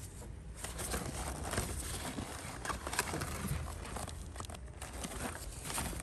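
Garden plant leaves rustling and crackling irregularly as they are pushed aside by a gloved hand and brush close against the phone.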